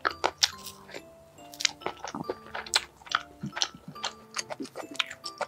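Close-miked eating sounds from a soft hazelnut-cream-filled bun: a quick, uneven string of sharp, sticky clicks and smacks, over light background music with held, bell-like notes.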